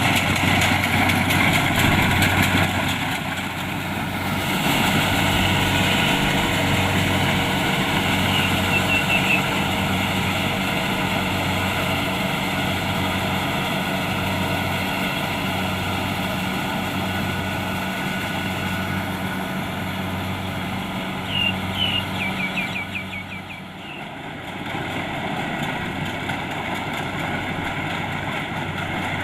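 Kubota DC-70 Plus combine harvester's diesel engine running steadily. Short high chirps cut through twice.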